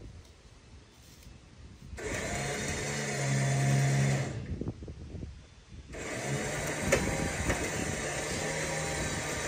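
Winch motor pulling a utility pole upright on its cable, with a steady hum under load. It runs in two pulls: about two seconds in for a couple of seconds, then stops, and starts again about six seconds in and keeps going, with a sharp click shortly after the restart.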